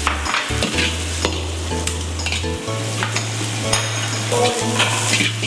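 Shallots and ginger sizzling in hot rendered lard in a wok, with a steel ladle scraping and clinking against the wok as it stirs them.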